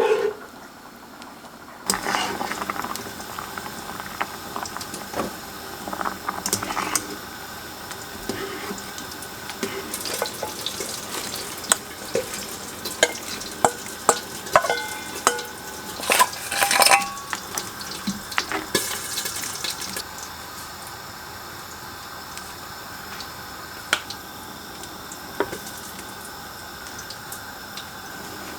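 Cooking sounds for a spicy crab stew with soft tofu: utensils clink and knock against a pot and dishes over a steady hiss from the cooking. The clinking stops about two-thirds of the way in, and the hiss goes on alone.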